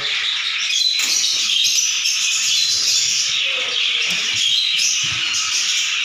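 A colony of lovebirds chattering and chirping continuously, many high-pitched calls overlapping into a dense chorus.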